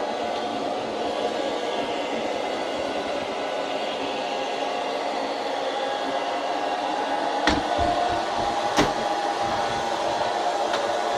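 Panda X500 Pet Series robot vacuum running steadily, its suction motor whirring at a constant pitch. Two sharp knocks come past the middle, a little over a second apart, then a faint click near the end.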